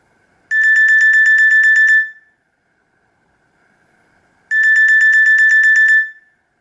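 Nokia E66 built-in ringtone: a single high electronic tone trilled rapidly, about nine pulses a second, in two bursts of about a second and a half, four seconds apart.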